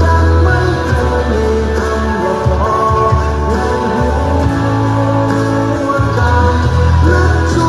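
Music: a song with singing and guitar over a strong bass line.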